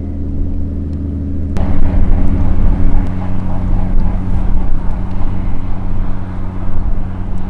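Fishing boat's diesel engine running with a steady low drone. About one and a half seconds in, a rough rushing noise comes in suddenly over the drone.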